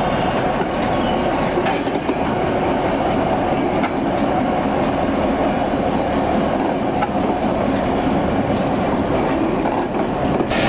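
Victorian Railways T-class diesel-electric locomotive T334 running steadily as it moves past at close range, its wheels running on the rails.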